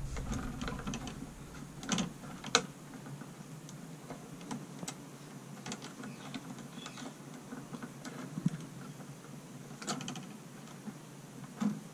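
Pliers gripping and bending electrical wire at a switch box: scattered small metallic clicks and scrapes, with a few sharper clicks.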